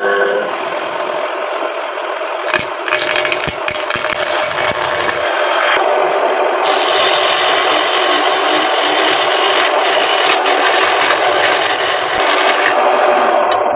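Homemade belt-driven wood lathe running, with a cutting tool made from an old sickle blade scraping into the spinning log. The motor's steady whir comes on suddenly, and the cut's hissing scrape grows louder and brighter about seven seconds in, easing off near the end.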